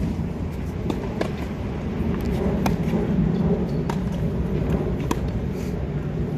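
Tennis balls struck by rackets in a practice rally: several sharp pops about a second or so apart, some fainter ones from neighbouring courts, over a steady low rumble.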